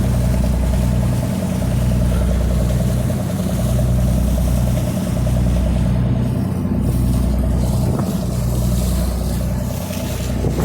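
Boat engine running steadily, a low drone that swells and dips about every second and a half.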